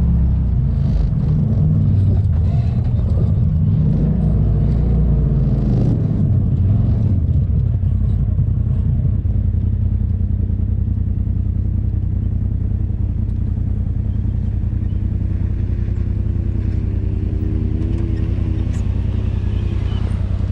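Side-by-side UTV engine running under load over a rough dirt trail, with knocks from the ground, then settling to a steadier low hum about eight seconds in. In the second half another side-by-side's engine comes in, its pitch rising and falling as it pulls up close.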